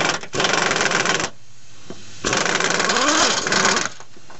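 Pneumatic impact wrench hammering on a steering box mounting bolt, backing out the already loosened bolt. It runs in two bursts: the first stops about a second in, and the second starts a second later and lasts about a second and a half.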